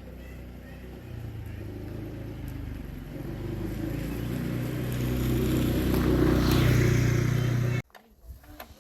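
A tiller's engine running with a steady low note, growing louder over several seconds, then stopping abruptly near the end.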